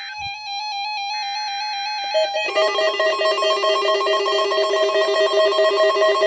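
The end of an Emergency Alert System SAME header on NOAA Weather Radio: a buzzy digital data burst about a second long, over a steady tone, stops about two seconds in. A louder chord of several tones, pulsing rapidly, then takes over.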